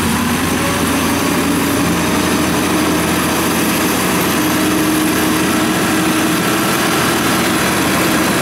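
Engine of a small tracked rice-straw baler running steadily under load as the machine crawls through a flooded, muddy paddy.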